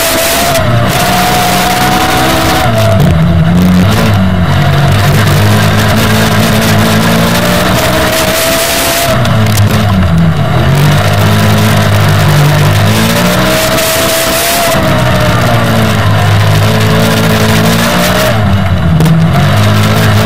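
500 cc kart cross engine heard from on board, running hard and rising and falling in pitch as the driver accelerates and lifts for the corners, about four times, over a constant rush of noise.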